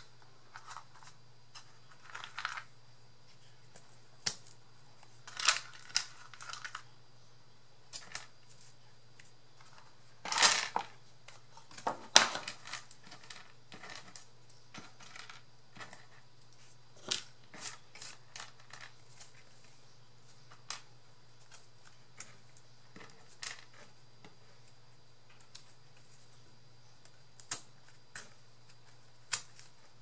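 Small cut wooden dowel pieces being handled and fitted into holes in a cardboard base: scattered light clicks and taps. About ten seconds in there is a louder rustle as the pieces are tipped out of a clear plastic bag onto the table, followed by a sharp click. A faint steady low hum runs underneath.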